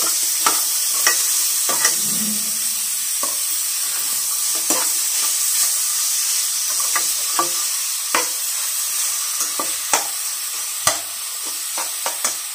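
Radish and onion bhurji sizzling in a metal kadai while a slotted metal spatula stirs it, scraping and knocking against the pan at irregular moments. The sizzle is a steady hiss with sharp clicks from the spatula on top.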